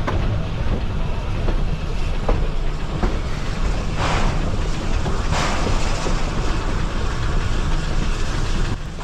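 Narrow-gauge train moving behind a 1928 Lima Shay geared steam locomotive: a steady low rumble of the running gear with scattered clicks of the wheels on the rails. Two hissing bursts of steam come about four and five and a half seconds in.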